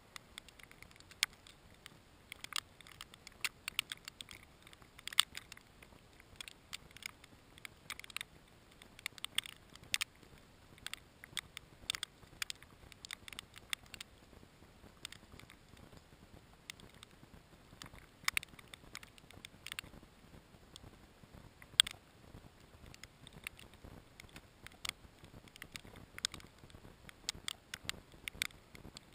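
Irregular light ticking and pattering of falling snow striking the camera housing, with a few sharper ticks about five seconds and twenty-two seconds in.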